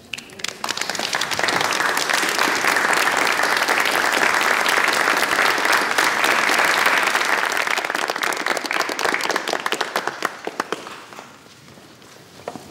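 Audience in a hall applauding. The clapping starts at once, swells within a second or two, then thins to scattered claps and stops about eleven seconds in.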